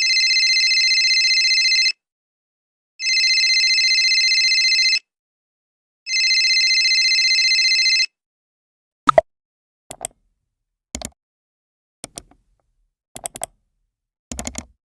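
Telephone ringing three times, each ring a steady high trill about two seconds long with a second's pause between. Then comes a series of short clicks, about one a second.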